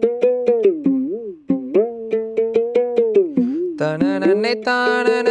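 A one-string plucked drum instrument, with a goatskin head on a wooden measuring-vessel body and a rope string through the skin, played at about four plucks a second. The note bends up and down as the string's tension is varied, over a steady lower drone. A fuller, sustained tone joins about four seconds in.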